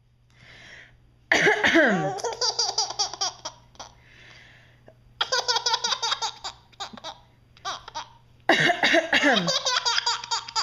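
Baby laughing hard in three long bursts, each a quick run of ha-ha pulses, with quieter breathy sounds in the pauses between.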